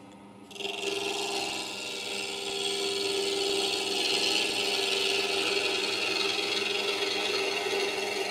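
Woodturning gouge cutting into a cedar-of-Lebanon cube spinning on a lathe across its points: an even, hissing cut that starts about half a second in, over the lathe's steady motor hum.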